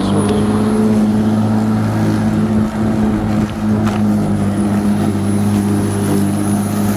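Black & Decker 42 cm 1800 W electric rotary lawnmower running steadily at full speed, just switched on: a steady motor-and-blade hum with a thin high whine over it.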